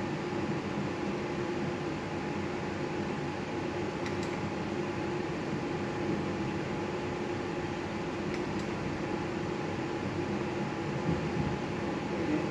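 Steady hum of fans or air conditioning with a couple of faint steady tones in it, and a faint click about four seconds in and again about eight and a half seconds in, each marking the start of a new spin on a video slot machine.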